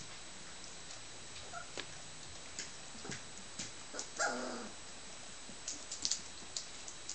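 Dalmatian puppies eating from a stainless steel feeding pan: scattered small clicks and smacks. A little over four seconds in, one puppy gives a short whine of about half a second.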